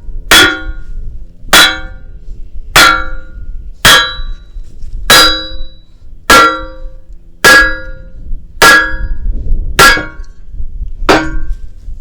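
A hammer striking the steel of a skid-steer wood splitter ten times, about one blow every 1.2 seconds, each clang ringing briefly. The blows are knocking off a torch-cut piece that is still attached on the backside.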